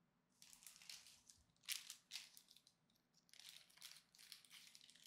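Faint crinkling and rustling of a foil Pokémon booster pack wrapper being handled, in irregular short bursts.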